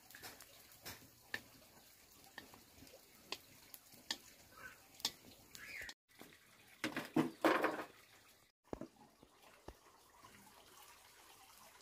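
Water dripping and splashing, with scattered light clicks and knocks and a louder rush of noise about seven seconds in.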